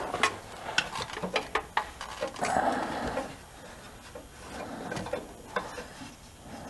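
Metal clicks and scraping as a VW air-cooled engine's valve cover and its spring-wire bail clip are worked into place: a quick run of sharp clicks, a short scraping rub about two and a half seconds in, then scattered lighter taps.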